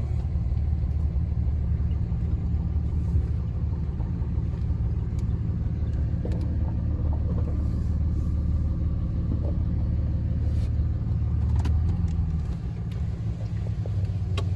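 Diesel pickup engine of a 2005 Dodge Ram 2500 (5.9-litre Cummins inline-six turbo diesel), heard from inside the cab as a steady low rumble while the truck rolls slowly. The rumble eases off near the end.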